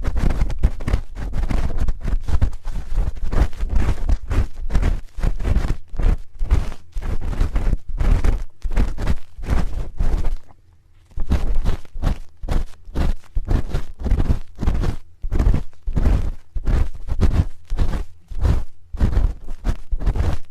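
A spoon rubbing and scraping against an ASMR ear microphone in quick repeated strokes, several a second, each with a boomy low thump, pausing briefly about halfway through.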